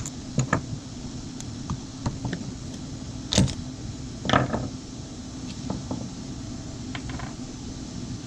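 Small clicks and clatters of hand tools and chainsaw carburetor parts being handled during disassembly, with two louder rattles about three and a half and four and a half seconds in, over a steady low hum.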